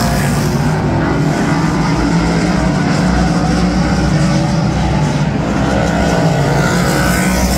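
Race car engines running loud and steady, with engines accelerating and rising in pitch about five seconds in and again near the end.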